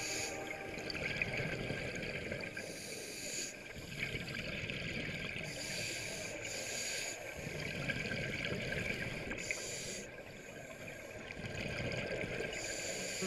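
Scuba divers breathing underwater through their regulators, heard through a GoPro's housing: a steady muffled wash with a hiss of breath and bubbling exhaust coming in bursts about every three seconds.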